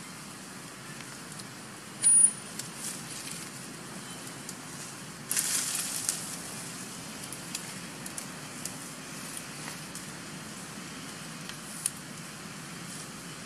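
Steady outdoor background hiss, broken by a short sharp sound with a thin high squeak about two seconds in, then a second or so of crackling rustle around the middle, and a few faint ticks.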